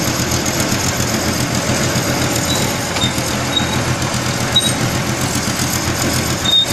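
Tracked mobile belt conveyor running with a steady mechanical hum while its boom is moved, with several brief high squeaks in the second half.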